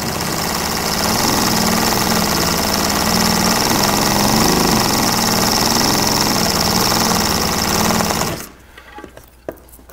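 Industrial sewing machine running steadily as it stitches Velcro onto a strip of keder welt, stopping about eight seconds in, followed by a few faint clicks.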